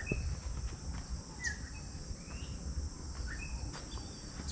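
A steady high-pitched chorus of field insects, with a small bird giving short chirps over it about once a second, some notes falling and some rising.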